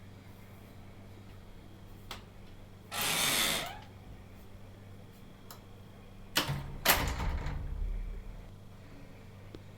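Smart door lock being worked by hand: a short mechanical whirr of under a second, then two sharp latch clicks about half a second apart, followed by a low rumble, over a steady low hum.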